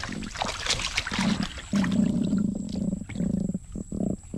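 Black drum croaking out of water, a low buzzing drumming made with the swim bladder, in a string of bursts: the longest comes about two seconds in, followed by several short ones. Water splashes and drips from the fish at first as they are lifted.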